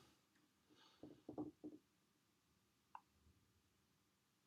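Near silence: room tone, with a few faint soft knocks about a second in and a single faint click near three seconds.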